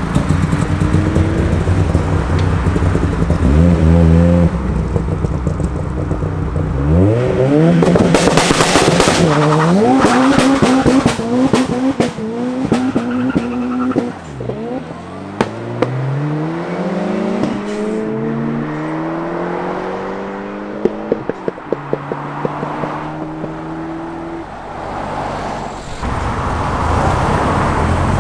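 Ford Sierra RS Cosworth accelerating hard away, its engine revs climbing and dropping through several gear changes. A harsh crackling burst comes about eight seconds in, and a string of sharp pops around twenty seconds. Near the end another car's engine comes in close.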